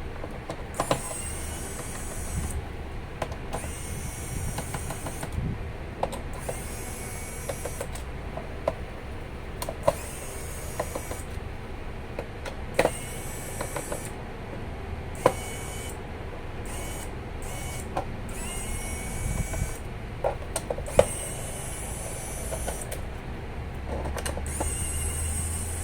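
Screws being undone from the bottom case of an ASUS laptop with a screwdriver: small scraping and turning sounds with sharp clicks and taps scattered throughout, a few of them louder.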